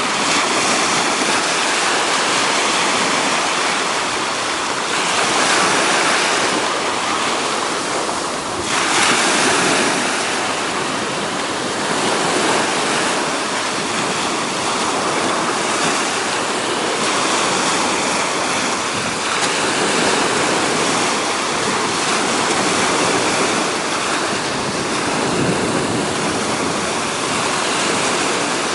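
Ocean surf washing steadily onto the beach, swelling louder as waves break, about five seconds in and again about nine seconds in.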